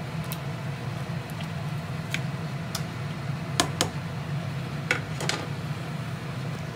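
Steady low hum from a glass-top electric cooktop heating a stainless steel soup pot, with a handful of sharp clicks and light taps scattered through.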